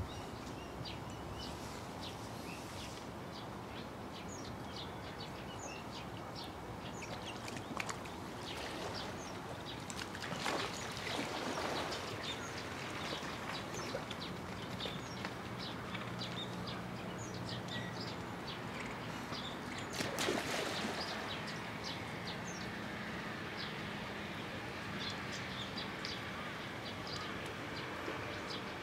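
Outdoor ambience with many short, high chirps of small birds scattered throughout, over a faint low hum, with two louder rustling bursts around ten and twenty seconds in.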